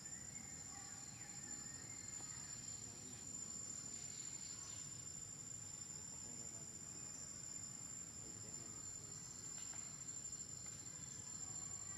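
Insects, likely crickets, trilling in a steady, faint, high-pitched chorus.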